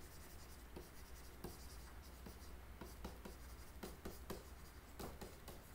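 Faint tapping and scratching of a pen stylus on a tablet screen as words are handwritten, in short irregular strokes over a steady low hum.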